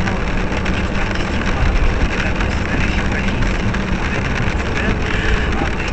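Car driving: steady engine and road noise.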